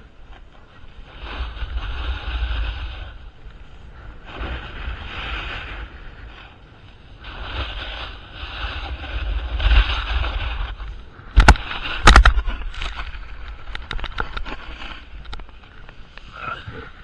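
Ski or snowboard edges scraping across packed snow in a series of turns, each turn a swell of hissing scrape a few seconds apart, over steady wind rumble on the camera microphone. Two sharp loud knocks come close together about two-thirds of the way through.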